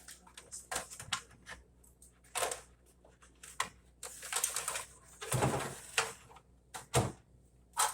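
Irregular clicks, light knocks and short scraping rustles of hands and tools working on refrigerator parts, with a few louder knocks about five and seven seconds in.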